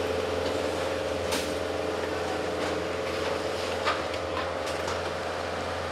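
Armoured water-cannon truck running steadily, its engine under a constant hiss of spraying water, with a few sharp pops; the loudest comes about four seconds in.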